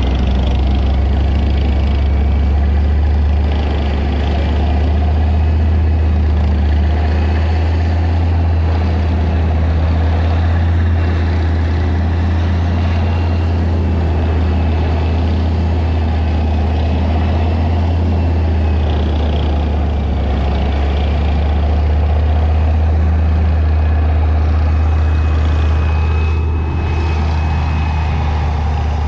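Leopard 1A5 main battle tank driving at a steady pace, its MTU MB 838 ten-cylinder multi-fuel diesel giving a loud, steady deep drone, with a faint thin high whine that wavers slightly over it.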